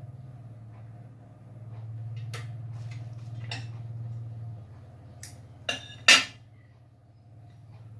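A steady low hum with several sharp clinks and clatters of hard objects being handled, the loudest about six seconds in.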